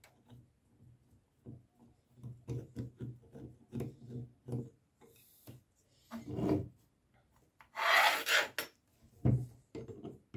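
A screwdriver working the screws out of an old metal faucet's cross handles: a run of small clicks and taps, then a short scraping rub about eight seconds in, the loudest sound, and a knock on the wooden tabletop.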